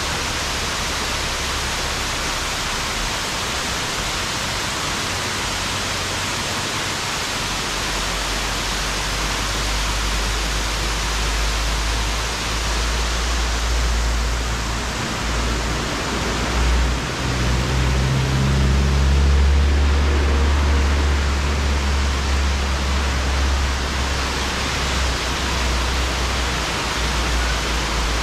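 Water from roadside waterfalls cascading down a rock face: a steady rushing hiss, with a low rumble joining it from about eight seconds in.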